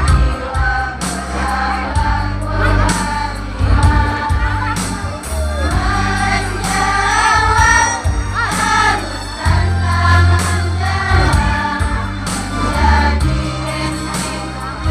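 A school choir singing an Indonesian madrasah anthem in unison, over an instrumental backing with a steady beat and bass.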